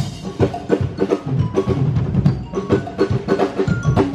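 Percussion music: drums with rapid, rhythmic strikes and short pitched notes from marimba-like tuned mallet percussion.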